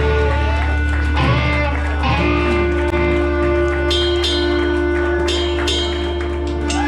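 Live blues band with electric guitars, bass and drums holding out the closing chord of a song: a steady low bass note and sustained guitar tones, with bending guitar notes and cymbal crashes over them in the second half.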